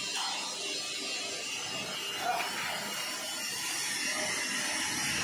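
Steady rushing background noise, with a short faint sound about two seconds in.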